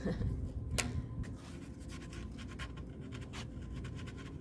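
Pencil scratching on a wooden board, a run of short quick strokes through the middle, as a notch is marked out.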